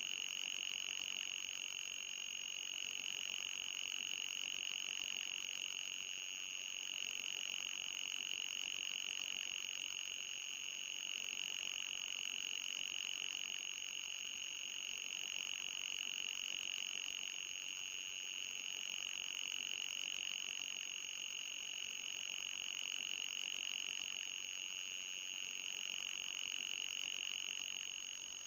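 Electronic anti-mosquito repellent tone: a steady, high-pitched whine with a fainter, higher tone held above it.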